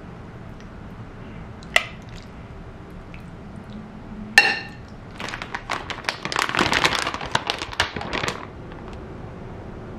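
Objects being handled: a single click, then a sharp clink that rings briefly about four seconds in, followed by a few seconds of dense crinkling and clattering.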